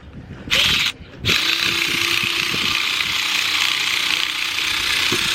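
Cordless power ratchet spinning a bolt: a short blip about half a second in, then running steadily for about four seconds, backing out a long alternator mounting bolt.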